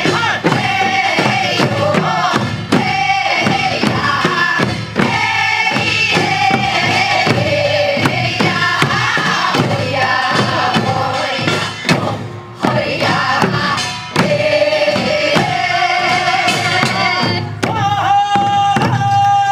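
Group of singers performing a Korean farming folk song (deul-sori) together, with a barrel drum (buk) beating a regular rhythm under the singing. A long note is held near the end.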